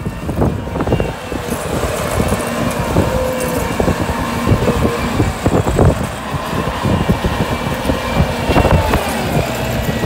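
Bobcat compact track loader's diesel engine running hard as the machine drives and pushes dirt with its bucket, with scattered clanks over the steady engine note.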